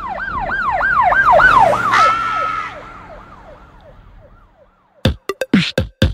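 Siren wailing in quick rises and falls, about three a second, growing louder, dropping in pitch about two seconds in as if passing, then fading away. An electronic drum-machine beat starts near the end.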